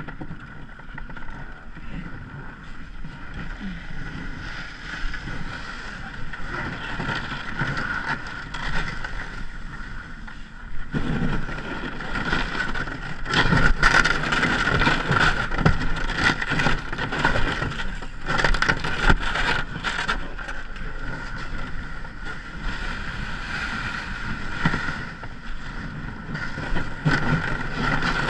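Ice canoe under way, with knocks and splashes of paddles and ice against the hull, more frequent and louder from about a third of the way in. Wind on the microphone runs throughout, along with a steady high whine.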